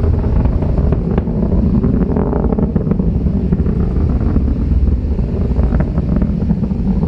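Low, steady rumble of a SpaceX Falcon 9's nine Merlin first-stage engines during ascent, heard from the ground, with constant crackling.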